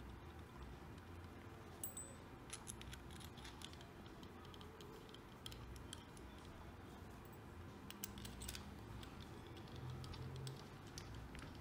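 Faint scattered clicks and taps of small steel bolts and the aluminium oil pump cover of a Honda CBX 1000 being handled and fitted together by hand, over a low hum.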